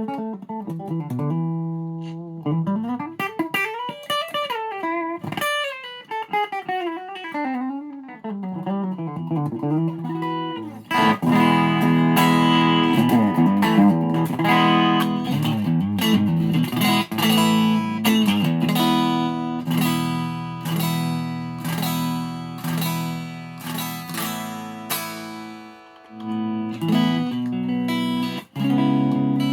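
Ibanez SA260 electric guitar with an SSH pickup set played through an amp. For the first ten seconds or so, single notes slide and bend up and down in pitch. Then it goes into fast, rhythmic chord picking for the rest of the stretch.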